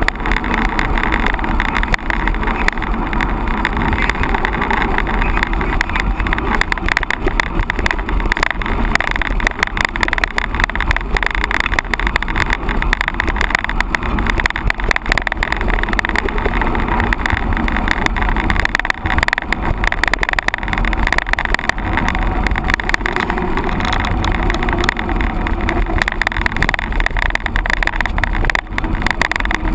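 Mountain bike being ridden: wind rushing over the camera microphone with tyre and frame rattle. It is loud and steady, broken by many small irregular knocks.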